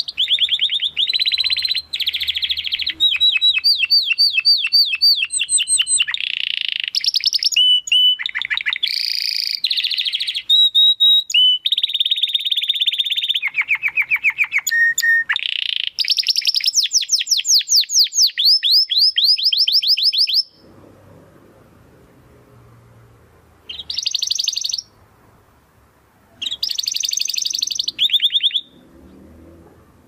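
Domestic canary in full song: a fast run of rapid trills and rolled phrases, each a string of quick repeated notes that switches to a new note type every second or two. The song breaks off about two-thirds of the way through, and after a pause two short bursts of trilling follow.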